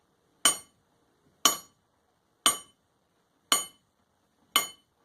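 The small hand-forged steel hammer of a door knocker tapping its steel striker head five times, about once a second, each tap a sharp ringing clink.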